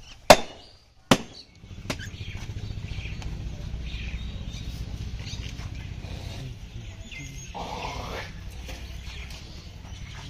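Two heavy cleaver chops through beef ribs on a wooden chopping stump, about a second apart, with a lighter knock just after. Then a steady low rumble of outdoor background noise.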